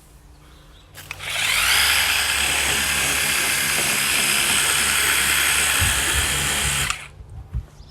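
Worx WG625E cordless pressure washer's pump motor starting on the trigger about a second in and running steadily, with the hiss of the water jet from the 15-degree nozzle, then stopping a second before the end.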